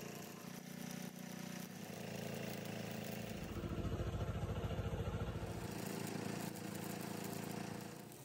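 Stick (arc) welding on a truck drive shaft: a steady low hum from the welding machine under the crackle of the arc. About three seconds in, a louder, pulsing low rumble comes in and lasts a couple of seconds.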